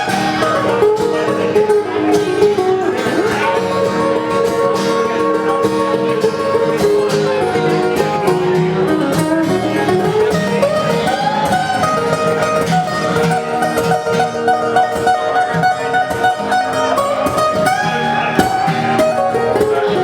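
Live acoustic instrumental break: picked and strummed acoustic guitars, with a melodic lead line that slides between notes.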